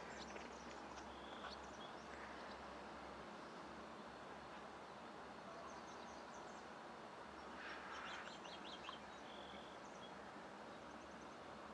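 Faint steady outdoor background noise with scattered faint bird chirps, a small cluster of them about two-thirds of the way through.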